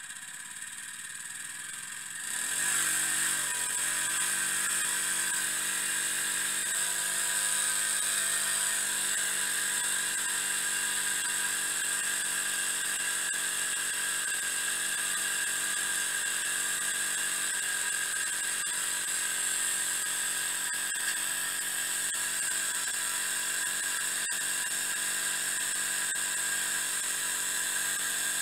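Miniature three-cylinder steam engine with Maudslay reversing gear running at speed: a steady high-pitched whir and hiss. It grows louder about two and a half seconds in, then holds steady.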